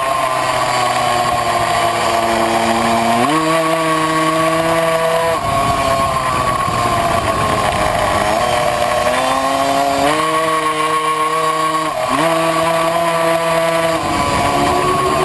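Tuned 70cc two-stroke Puch Maxi racing moped engine at high revs, heard on board. The revs sag and climb again through the lap, and a lower note jumps up suddenly and drops back several times.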